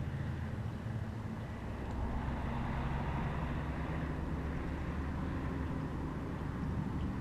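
Steady low drone of an engine running continuously, a deep hum with a noisy wash above it that swells slightly about two seconds in.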